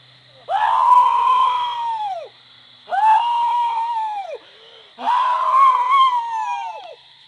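A man howling like a wolf, three long howls in a row. Each swoops up, holds a high steady note, then drops away at the end.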